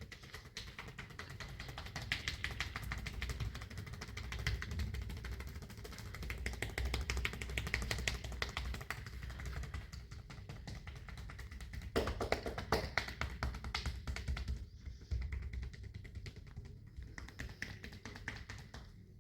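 Rapid, continuous tapping of percussive massage strokes on the body, with a louder flurry about twelve seconds in and sparser taps near the end.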